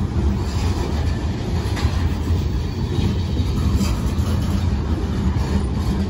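Covered hopper cars of a freight train rolling past, with a steady low rumble of steel wheels on the rails and occasional clicks as the wheels cross rail joints.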